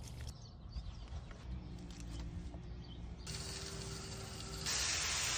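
Garden hose spray nozzle hissing as water sprays onto potting soil in a barrel planter, starting about three seconds in and growing louder near the end.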